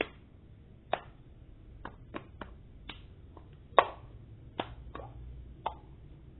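Cup-song rhythm: hand claps mixed with a small plastic cup being tapped, lifted and set down with a knock on a tile floor, about eleven sharp hits in an uneven beat.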